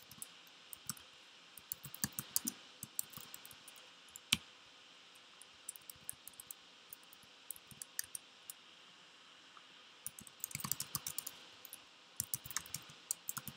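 Typing on a computer keyboard: irregular key clicks in bursts with short pauses, and one sharper, louder click about four seconds in.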